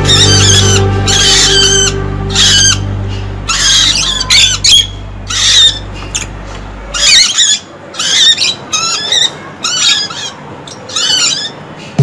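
Caged small parrots calling: many short, sharp chirping squawks in quick clusters. Background music with low steady tones fades out about halfway.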